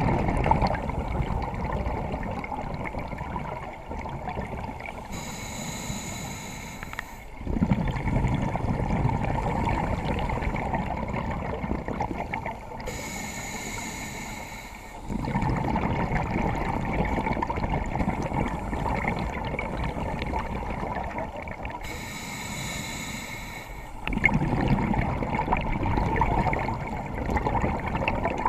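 Scuba regulator breathing heard underwater: long bubbling, rumbling exhales alternate with three short hissing inhales, one breath about every eight seconds.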